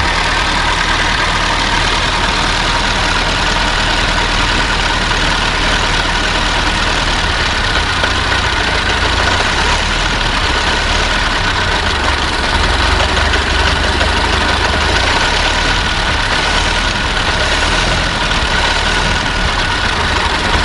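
Old car's engine idling steadily, its low rumble growing somewhat stronger about seven seconds in.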